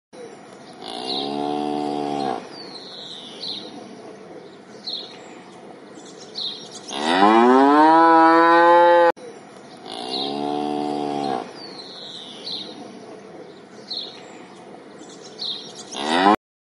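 Cows mooing: a moo, then a longer, louder moo that rises in pitch, and then the same pair again, the last moo cut off.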